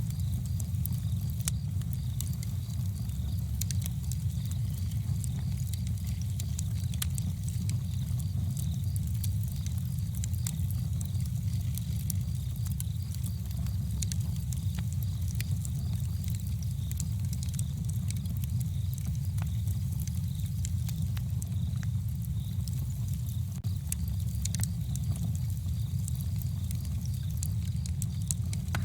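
Campfire burning, with frequent small irregular crackles and pops of burning wood over a steady low rumble.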